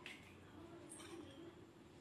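Near silence: faint steady room hum, with two light clicks, one at the start and one about a second in.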